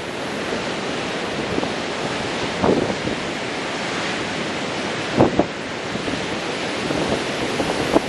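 Ocean surf breaking continuously on a sandy beach: a steady wash of white water. Wind buffets the microphone in two brief gusts, about a third and two-thirds of the way in.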